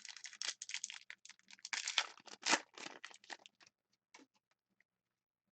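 A hockey card pack's wrapper being torn open and crinkled: a dense run of crackling and tearing for about three and a half seconds, then a few scattered crinkles as the cards are handled.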